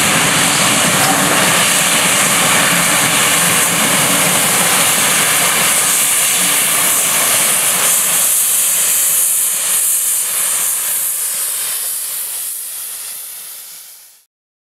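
Steam locomotive and its train of coaches passing, with a loud steady hiss of steam over the running rumble. The sound fades away near the end.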